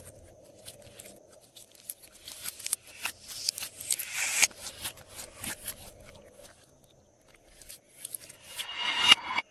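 Glossy slime being mixed: a run of sticky clicks and crackles, with a longer tearing swish about four seconds in and another near the end.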